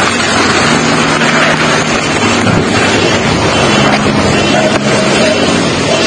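Strong storm wind blowing hard, a loud steady rushing noise with the gusts buffeting the phone's microphone.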